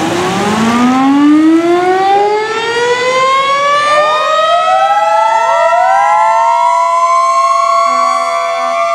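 Several fire trucks' mechanical sirens winding up one after another, each rising slowly in pitch over a few seconds and then holding a steady wail. Near the end, a lower steady horn sounds in two short blasts.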